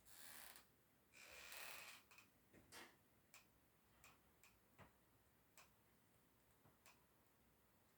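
Near silence, with two brief soft rustles in the first two seconds, then scattered faint clicks.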